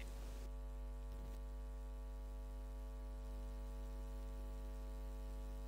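Steady electrical mains hum with buzzy overtones, low in level and unchanging.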